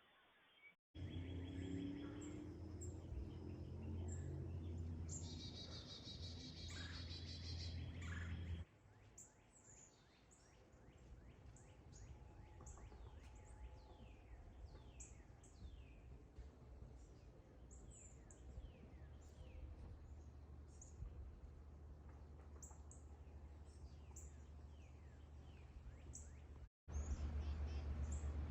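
Small wild birds chirping: many short, quick downward chirps repeating over a faint background, with a steady low electrical hum from the camera in the first few seconds.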